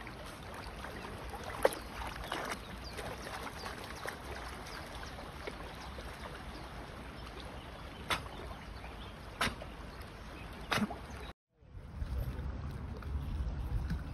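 A dachshund paddling through shallow river water: steady water sound with a few short sharp clicks. After a cut, wind rumbles on the microphone over open water.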